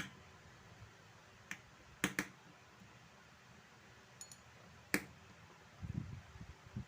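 Sharp little clicks of a small tool against a wristwatch's parts as it is taken apart, a handful of separate ticks spaced a second or so apart, then soft handling bumps near the end.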